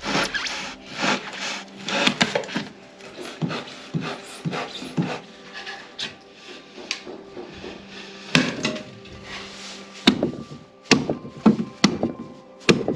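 A utility knife cuts rigid insulation foam board in repeated rasping strokes. Later come sharp knocks and taps as the foam panels and wooden box parts are handled and fitted together.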